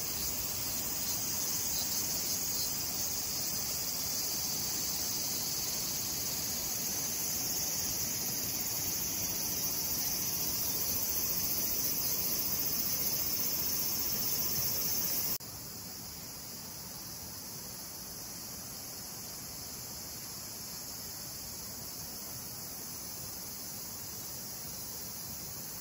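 Steady, high-pitched chorus of summer insects. It drops abruptly in level about fifteen seconds in and carries on more quietly.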